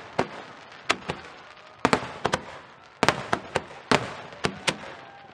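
Aerial firework shells bursting: a fast, uneven string of about fifteen sharp bangs, thickest in the middle and thinning out near the end.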